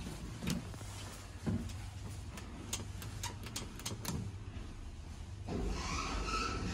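Repeated clicks of a 1970 Express elevator's light-up car call buttons being pressed, a run of quick presses about three a second in the middle, over a low steady hum. A louder hissing noise comes in near the end.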